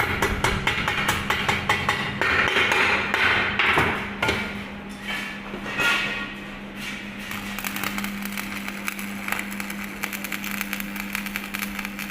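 Stick-welding arc crackling and sputtering as a rod burns along a pipe joint, louder for the first five seconds or so and then softer and steadier, with a steady low hum underneath.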